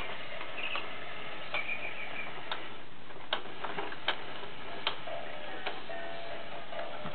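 Electronic sounds from a baby bouncer's light-up toy bar: a regular tick a little faster than once a second, with short high chirps in the first couple of seconds and a few short low notes near the end.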